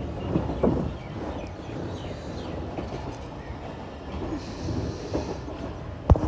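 Passenger train rolling slowly through a junction, its wheels rumbling and clattering over rail joints and points, with a sharp knock about six seconds in.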